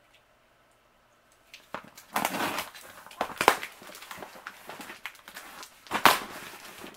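Large plastic Priority Mail envelopes rustling and crinkling as they are handled and shifted against a cardboard box, with a few sharper crackles. The sound starts about a second and a half in.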